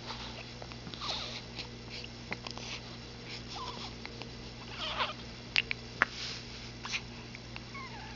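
Cat hiccuping: a few short squeaky chirps that bend in pitch and several sharp clicks, scattered every second or two.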